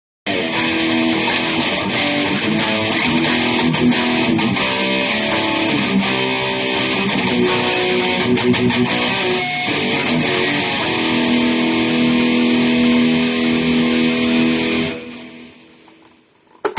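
Electric guitar played through an amp, strummed chords and riffs with a long held chord toward the end that is cut off about 15 seconds in and rings away.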